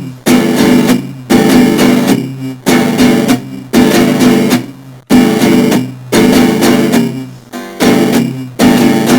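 Guitar strumming chords, roughly one strum a second, each chord ringing out and fading before the next.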